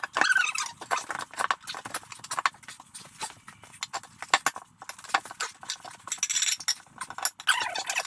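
Steel tire irons levering a tire bead over an aluminum rim: irregular clinks and knocks of metal, with the rubber squeaking against the rim.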